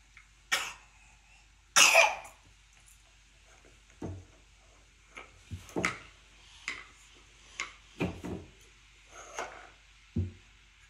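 Wooden toy pieces clacking and knocking together as a toddler handles them: a scattering of short knocks about once a second, with a louder, rougher sound about two seconds in.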